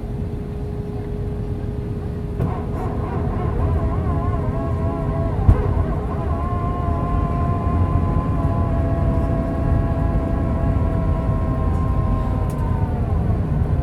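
Cabin noise of an Airbus A320 on approach: the steady rumble of airflow and its IAE V2500 engines, with a steady hum throughout. A whining engine tone joins about two seconds in, wavers, holds steady, then falls away near the end. There is a single thump about five seconds in.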